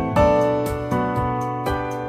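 Background music: sustained keyboard chords over a steady beat of light ticks, about four a second.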